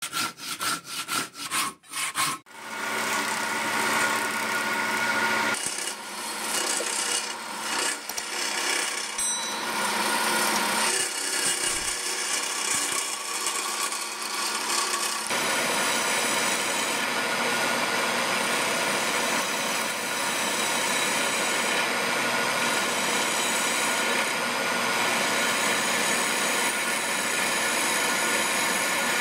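A hand saw cutting through a log in quick strokes, about three a second, for the first two and a half seconds. After that, a wood lathe runs with a steady tone while a gouge, and later a scraper, cut into the spinning wooden blank, making a continuous scraping.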